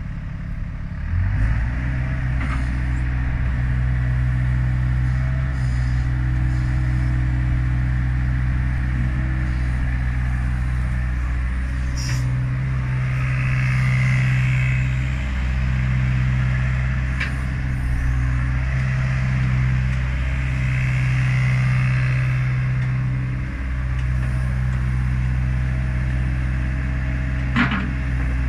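Diesel engine of a Hyundai R80CR-9 tracked excavator running steadily at idle, picking up slightly about a second in. There are a few sharp clicks.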